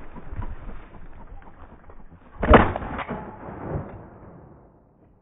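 A shotgun fired once at a flushing chukar partridge about two and a half seconds in, a loud sharp report, with a fainter sharp sound about half a second after it.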